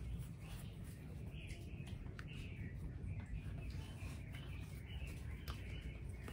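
Small puppy whimpering in a few short, high, wavering squeaks over a steady low hum.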